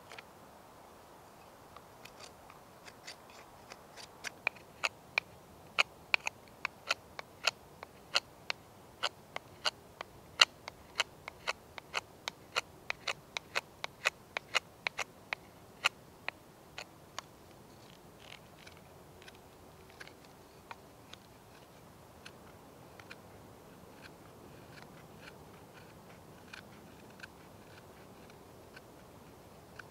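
Bushcraft knife whittling a hardwood stick, each stroke a short, crisp snick as the blade shaves off wood, about two a second. The cuts are loudest through the middle and grow fainter and sparser near the end.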